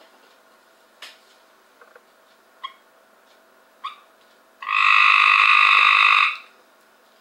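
Cope's gray tree frog calling: two short chirps, then a loud trill of nearly two seconds about two-thirds of the way through.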